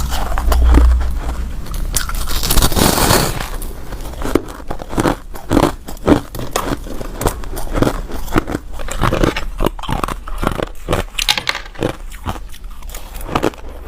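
Ice being bitten and chewed close to the microphone. A dense crackling crunch runs for the first three seconds or so, then gives way to a run of sharp separate crunches, several a second.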